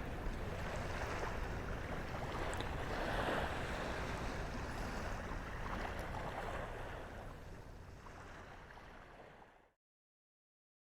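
Small Gulf waves lapping on the shore, swelling a little about three seconds in, then fading out and cutting to silence near the end.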